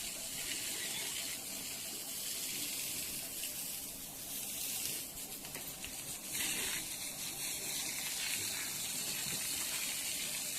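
Steady hiss of running water, a little louder for a moment about six and a half seconds in.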